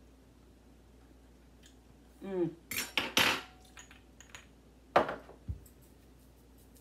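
A spoon and small glass spice jars clinking and knocking on a kitchen counter in a few quick clatters, the sharpest about five seconds in. A short hummed 'mm' comes just before the first clatter.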